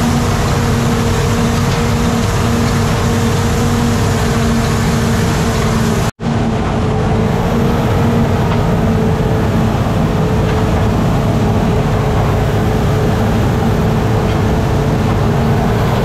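Crawler dozer's diesel engine running steadily, heard from inside the operator's cab. The sound drops out for a split second about six seconds in.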